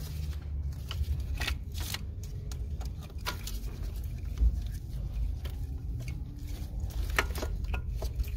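Scattered clicks, taps and rustles of gloved hands prying out and handling a metal port-injection fuel rail with its plastic injector connectors, over a steady low rumble.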